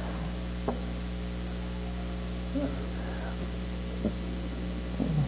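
Steady electrical mains hum from the sound system, with a couple of faint taps.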